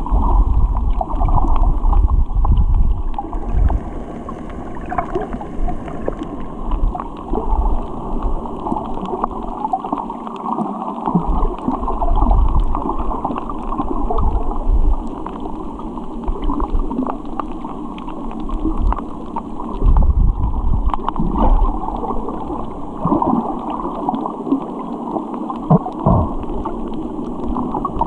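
Muffled underwater sound through a camera's waterproof housing: a low rumble of moving water that swells every few seconds, with scattered small crackles and ticks.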